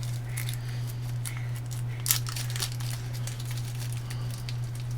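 Light crinkling, rustling and small clicks of electronic parts being handled while a resistor is picked out, with the sharpest click about two seconds in. A steady low electrical hum runs underneath.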